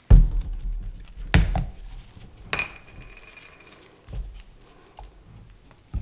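Olive oil bottle being handled and its cap twisted off over a wooden bench, beside a glass mason jar. There is a heavy thump at the start, then a couple of sharp clicks, a brief squeak about two and a half seconds in, and a few softer knocks.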